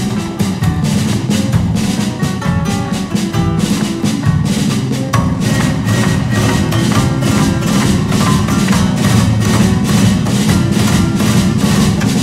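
Live flamenco instrumental music from guitar, cello and drum kit, driven by rapid, sharp percussive taps over sustained pitched notes, with no singing.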